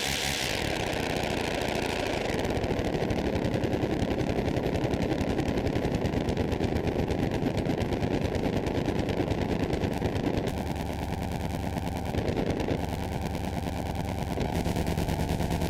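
Qun mk2 software synthesizer sounding a noisy drone: a dense, rapid crackling texture over a low hum, its sound shifting as its parameters are adjusted. A bright swish fades out in the first couple of seconds, and the texture thins for a couple of seconds about two-thirds of the way through.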